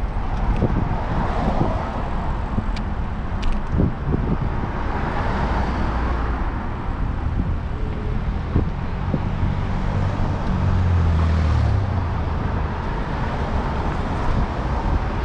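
City street traffic heard from a moving bicycle: a steady wash of car and road noise, with a heavier vehicle's low engine rumble swelling about ten seconds in and fading two seconds later.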